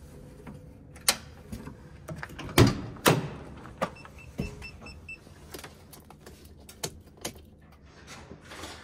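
Climbing into a semi truck's cab: scattered knocks and thumps on the metal steps and cab door, the loudest two about a second apart near the middle, and a quick run of about six short electronic beeps from the cab about four seconds in.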